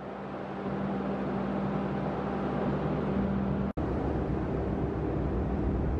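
Steady low machinery hum over a noisy rumble of wind and water, cutting out for an instant a little past the middle and then carrying on.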